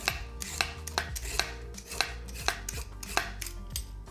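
Handheld vegetable peeler scraping strips of skin off a daikon radish in quick, even strokes, about two or three a second, each a short sharp rasp.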